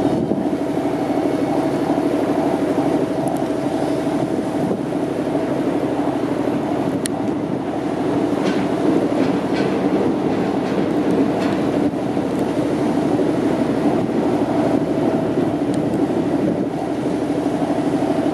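Tour boat's engine running steadily: an even drone with a held steady tone above it, with a few faint clicks about halfway through.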